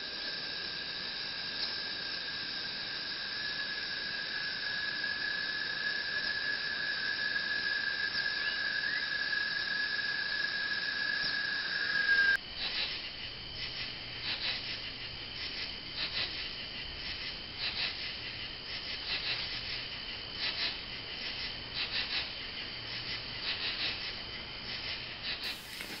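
Insects chirring. A steady high trill with a continuous whistling tone gives way, after an abrupt change about twelve seconds in, to rapid irregular high chirping pulses over a faint low hum.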